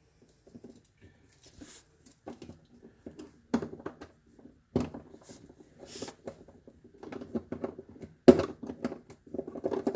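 Hands handling and fitting plastic refrigerator parts while a sensor is mounted: irregular clicks, knocks and rustles, busier in the last few seconds.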